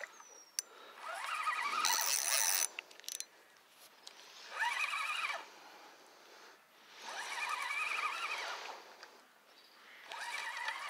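Three drawn-out, wavering animal calls, each about one to two seconds long and roughly three seconds apart, with a single sharp click shortly before the first.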